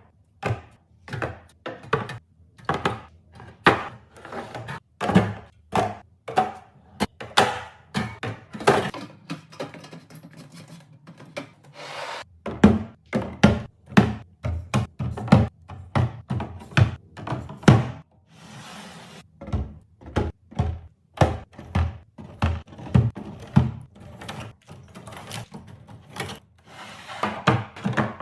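Packaged snacks, drinks and containers being set down and arranged one after another while restocking: a quick, irregular run of knocks, taps and thunks, with a brief rustle of packaging about two-thirds of the way through.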